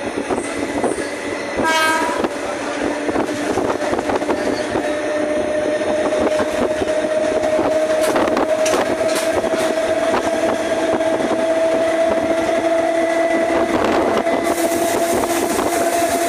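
Toshiba electric train heard from inside the car while under way: wheels clicking over the rails and a steady motor whine that rises slowly in pitch as it gathers speed. A short horn note sounds about two seconds in.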